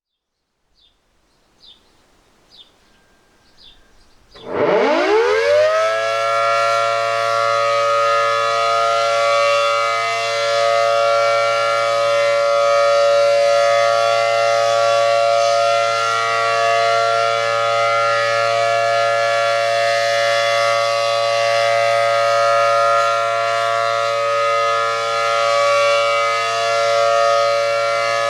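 ACA Allertor 125 outdoor warning siren winding up quickly from quiet about four and a half seconds in, then holding a steady chord of several pitches: the Full Alert signal of its monthly test. The sound swells and fades gently as the siren rotates.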